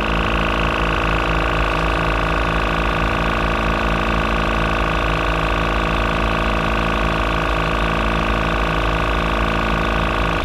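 Iker two-cylinder portable air compressor running steadily as a tyre inflator, with a regular pulsing hum from its pistons. It is topping the tyre off at its preset 35 psi and cuts off at the very end when the auto shut-off trips at the target pressure.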